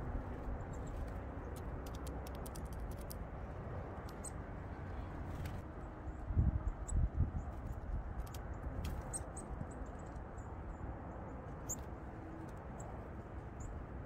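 Faint sharp taps and clicks of a Eurasian nuthatch pecking at a sunflower seed on a rock, over a steady low rumble, with a few low thumps about six to seven seconds in.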